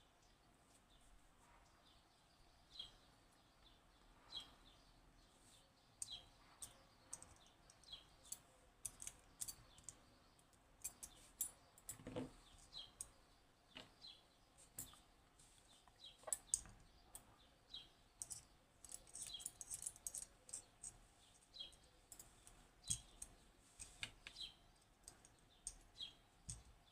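Faint, irregular light metallic clicks and ticks from the small steel levers and parts of a disassembled Western Electric 30B lever lock being handled and shifted, a few to several a second, over near-silent room tone.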